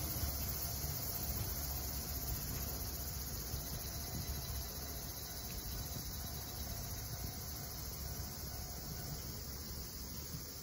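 Nagaragawa Railway Nagara 300-series diesel railcar pulling away, its engine's low rumble slowly fading as it recedes. A steady high insect chorus runs underneath.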